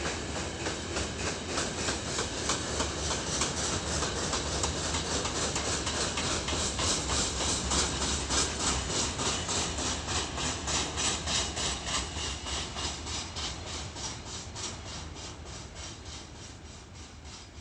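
Freight wagons of a long freight train rolling past, wheels clicking over rail joints at about four clicks a second. The sound fades over the last few seconds.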